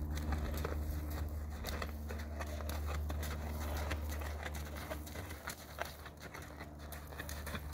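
Hoofbeats of a horse moving briskly on sand arena footing, a run of soft thuds and scuffs over a steady low rumble.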